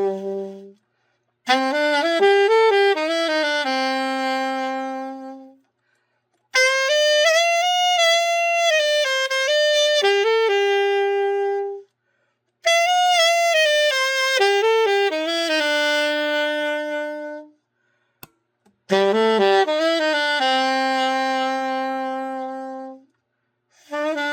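A Rampone & Cazzani Solista alto saxophone being played solo in short melodic phrases, each ending on a held note, with brief silences between them. This is typical of a play-test after the instrument's setup.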